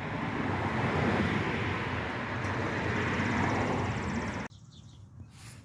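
Steady rushing noise that cuts off suddenly about four and a half seconds in.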